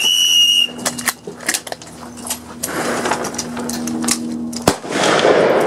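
A short, steady, high signal tone opens, then scattered .22 rimfire rifle shots crack along the firing line, with one sharp, louder shot about three-quarters of the way through.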